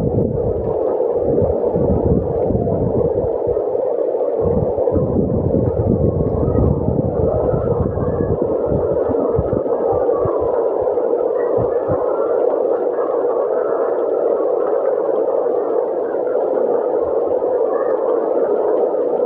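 Heavy rain and strong wind, a loud steady rush with gusts buffeting the microphone as low rumbles, thicker in the first half.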